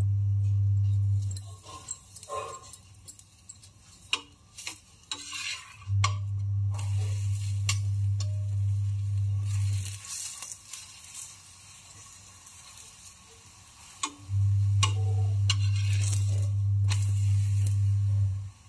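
Metal spatula scraping and pressing a paratha on a hot iron tawa, with oil sizzling, in scattered scrapes and clicks. A loud low hum comes and goes three times, about four seconds each: at the start, from about six seconds in, and from about fourteen seconds in.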